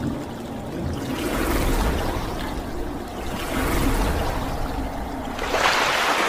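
Splashing, rushing water sound effects that swell and ebb, over a low rumble, with the loudest surge of splashing spray near the end.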